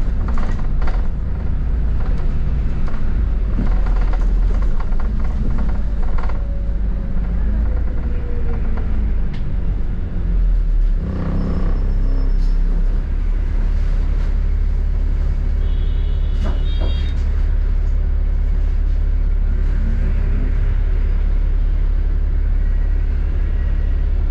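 Steady low rumble of engine and road noise inside a moving double-decker bus, with scattered small rattles and clicks and a brief louder burst about eleven seconds in.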